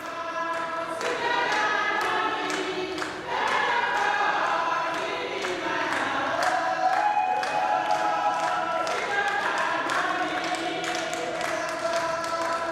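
A choir singing, many voices holding and sliding between sustained notes, over a steady percussive beat.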